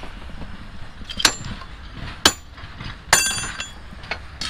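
Steel bar striking the rail and its fittings: several sharp metallic clinks about a second apart, the loudest, a little past the middle, ringing briefly.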